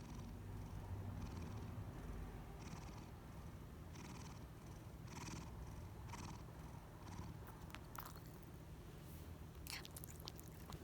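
A cat purring at close range, with a hissy noise through its nose on each breath, roughly once a second. A few sharp clicks come near the end.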